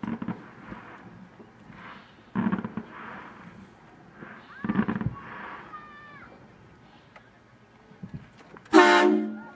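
Vehicle horn honks: three short blasts about two and a half seconds apart, then a louder, longer horn blast near the end that fades out.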